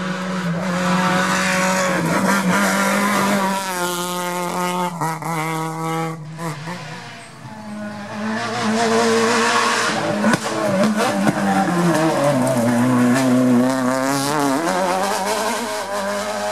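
Rally car engines running hard at racing speed, revving up and down through the gears. Two separate runs, with a dip in loudness about seven seconds in before the second car comes through.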